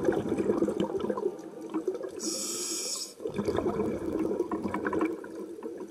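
Scuba diver breathing through a regulator underwater: a long stream of exhaled bubbles, a short hiss of inhalation about two seconds in, then another long burst of exhaled bubbles.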